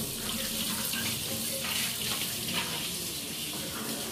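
Steady rush of water running from a kitchen tap, with a faint low hum underneath.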